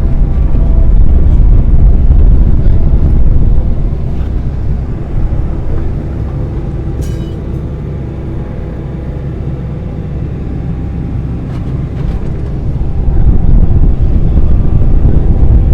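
A large engine running steadily. It drops in level about four seconds in and rises again near the end, with one short sharp click around the middle.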